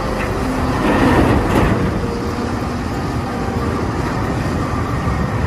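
Caterpillar 992G wheel loader's diesel engine running loud and steady under load while it dumps a bucket of earth into a dump truck.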